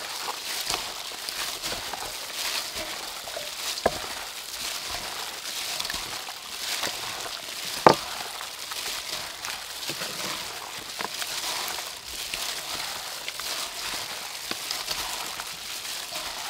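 Plastic-gloved hands squishing and kneading marinated chicken pieces in a stainless steel bowl: a steady wet crinkling of plastic and meat with many small clicks. A sharp click about eight seconds in is the loudest sound, with a smaller one near four seconds.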